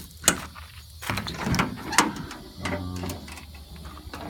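A metal toolbox drawer sliding with a rattling rumble, with sharp knocks and clinks of metal tools being handled.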